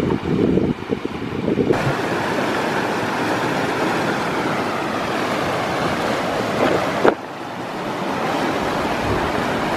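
Wind buffeting the microphone, then from about two seconds in the steady, even rush of a fast-flowing river. It drops off sharply about seven seconds in and swells back.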